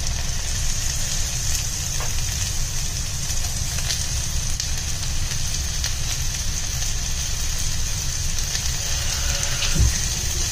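Sliced onions sizzling steadily in hot oil in a nonstick pan as tomato wedges are dropped in, with a few faint taps and a low thump near the end, over a steady low rumble.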